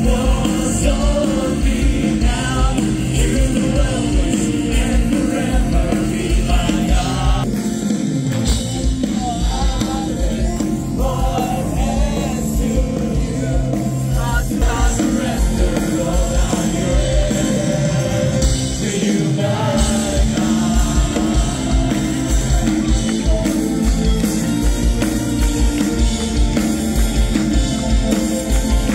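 Live worship music: a band plays a praise song with a steady beat while a lead singer sings through the PA.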